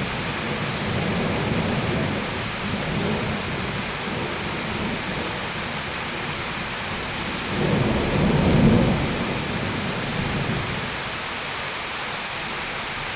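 Steady heavy rain with rolling thunder; a louder low rumble swells and fades about eight seconds in.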